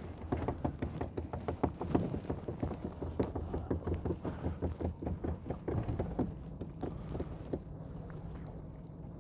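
A rapid run of light clicks and knocks, about four to five a second, over the low steady hum of a small boat's engine. The clicking stops near the end, leaving only the engine hum.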